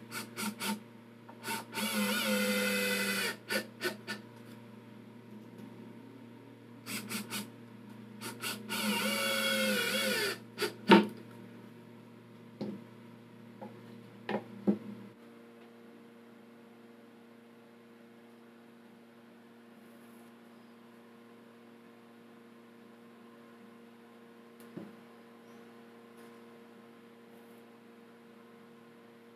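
Small cordless electric screwdriver working a screw in plywood: two runs of about two seconds each, the motor whine rising and falling in pitch, with clicks and a sharp knock between and after them. After that only a faint steady hum with a few light taps.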